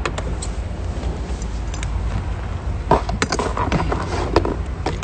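Steady low rumble inside a car, with scattered clicks and rustling from a phone being handled, the busiest stretch about three seconds in.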